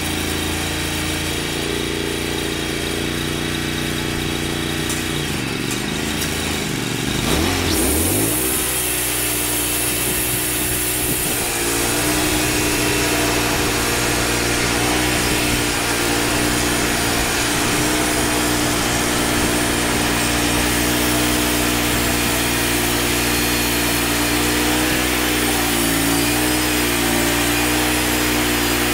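Wood-Mizer LT35 band sawmill running steadily. Its engine drops in pitch and comes back up about six to eight seconds in. From about twelve seconds on the sound is louder and hissier while the saw head travels along a pine log.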